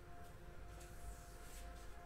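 Quiet room with faint rustling and sliding of trading cards being handled, over a low steady hum.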